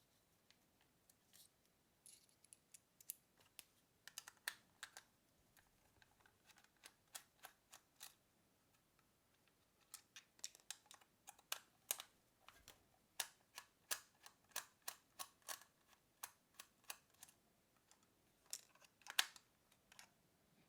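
Faint, irregular light clicks and ticks of a small screwdriver working the screws out of a plastic radio shoulder-mic housing, coming in quick runs about halfway through.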